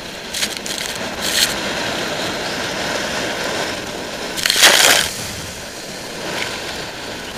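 Storm surf breaking against a pier, a continuous rush of churning water and spray. A brief surge comes about a second in, and a louder crash of a wave with spray about four and a half seconds in.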